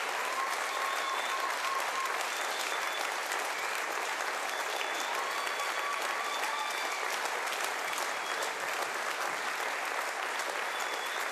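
Studio audience applauding steadily after a song.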